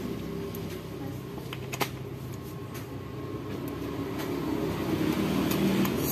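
Steady low motor hum, growing slightly louder in the last couple of seconds, with a few light clicks about a second and a half in.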